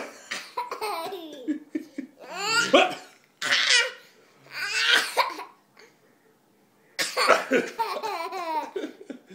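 A hiccuping laugh: a sudden sharp gasp at the start, then bouts of laughter in short pitched bursts whose pitch swoops up and down, with a longer, denser run of laughter about seven seconds in.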